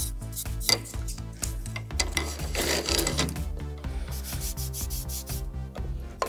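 Fine sandpaper rubbed in quick, rasping strokes over the felt hammer heads of a Steinway grand piano, reshaping the felt where needling during voicing has roughened it. Faint steady tones ring beneath the strokes.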